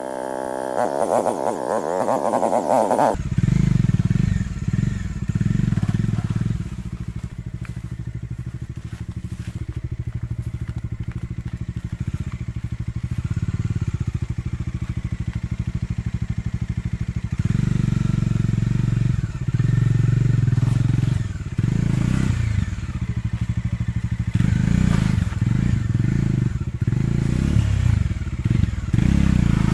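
Bajaj Dominar 400's single-cylinder engine running at low speed on a muddy off-road climb, swelling louder in several throttle bursts. A different wavering pitched sound fills the first three seconds and cuts off abruptly.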